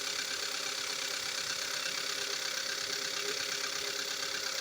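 2015 Kia Soul's four-cylinder engine running steadily with a fine, continuous ticking; the noise was later found to be piston slap, the pistons scoring the cylinder walls.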